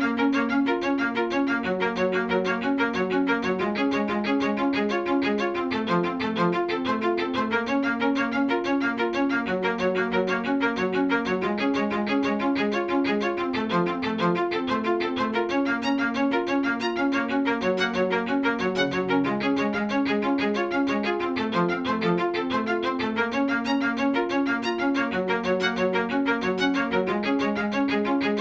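Background music with a bowed string instrument playing quick runs of notes.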